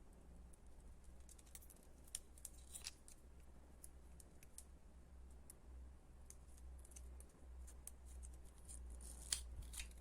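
Faint clicks, snips and scratches of hands working on small ball-jointed doll parts during assembly, irregular and scattered, with the sharpest cluster near the end. A steady low hum runs beneath.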